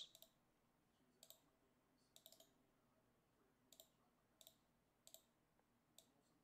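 Faint computer mouse clicks, about ten at irregular spacing, some in quick pairs or threes, as the list randomizer is worked.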